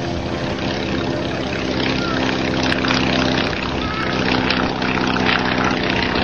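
Single-engine biplane engine and propeller at climb power as the plane lifts off and climbs away, a steady drone. The pitch drops slightly about three and a half seconds in as it passes.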